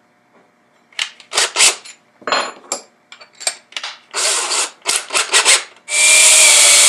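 Clicks and clatter as steel all-thread rod is handled and chucked into a DeWalt cordless drill, then, near the end, the drill runs steadily, spinning the rod to thread a 5/16-18 hex lock nut along it.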